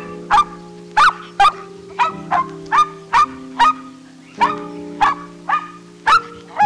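A dog barking in quick short barks, about two a second, over background music with held chords.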